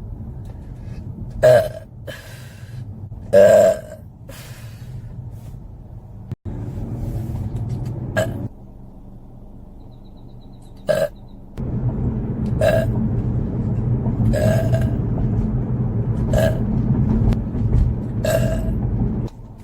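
A woman burping over and over, about eight burps. The two loudest and longest come early, followed by shorter ones every second or two, over a low steady rumble.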